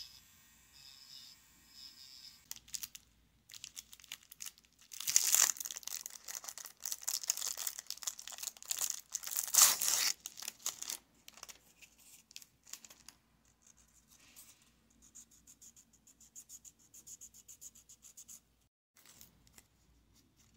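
Clear plastic cellophane wrapper crinkling and tearing as a nail buffer is unwrapped. After that come rapid, fine rasping strokes of the buffer roughing up a fingernail.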